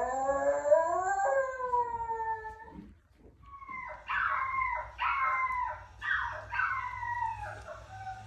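Dog howling: one long howl of about three seconds that rises and then falls slightly. After a short pause comes a run of five shorter howls about a second apart, each falling in pitch.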